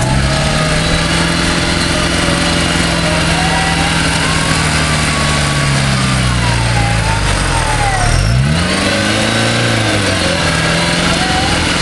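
Off-road 4x4's engine running and revving up and down under load as it is winched and driven up a steep bank. The revs drop and pick up again about eight seconds in. A higher wavering whine rises and falls alongside.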